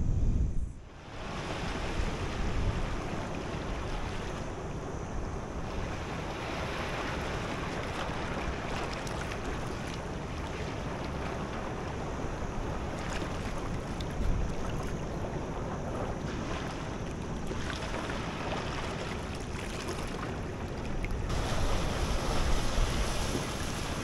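Shallow seawater washing over sand and a rock shelf, with wind buffeting the microphone, the buffeting heavier near the end.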